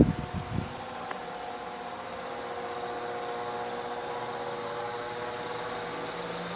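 Ceiling fan in a kitchen running with a steady hum and several steady whining tones: the noise the owner is complaining about. A few low thumps sound right at the start.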